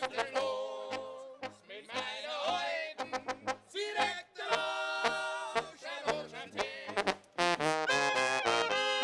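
A live band playing music with brass, trumpets and trombones, over a steady beat. The brass comes in louder and fuller about seven and a half seconds in.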